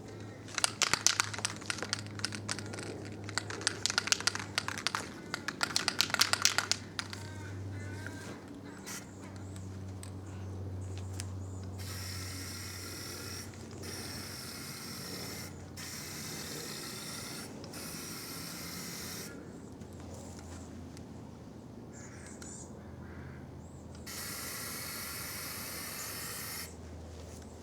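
Aerosol can of Rust-Oleum automotive enamel spray paint: for the first several seconds the mixing ball rattles inside the shaken can. From about twelve seconds in come a series of short spray hisses with brief pauses, and one more spray burst near the end, over a low steady hum.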